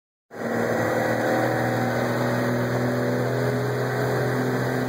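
Motorboat engine running steadily at speed while towing two inflatable tubes, over a steady rush of wake and air noise.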